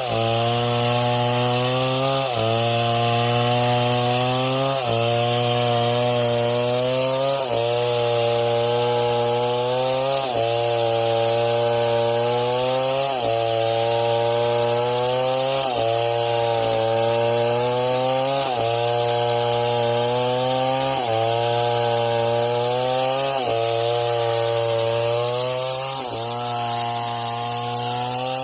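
Chainsaw engine running at high revs, its pitch sagging and climbing back about every two and a half seconds, as with a saw being worked under load.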